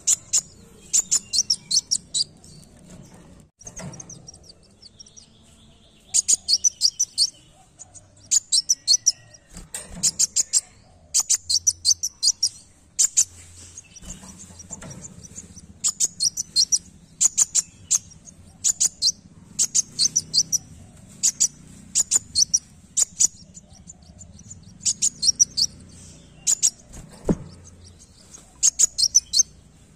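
Caged male sunbird (kolibri wulung) singing: quick bursts of very high, thin chirps, one burst every second or two, with a few short pauses.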